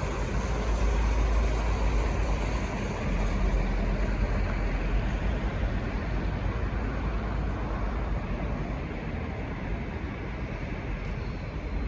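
V/Line N class diesel-electric locomotive and its train rumbling as they pull away, a steady low rumble that slowly fades with no horn sounding.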